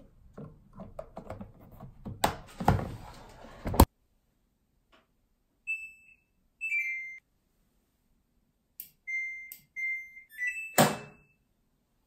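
Samsung front-loading washing machine: plastic clicks and a loud clatter as the automatic detergent dispenser's compartment caps are closed, ending abruptly. Then the control panel beeps as its buttons are pressed, about five short electronic tones, one a quick falling three-note chime, with a sharp click near the end.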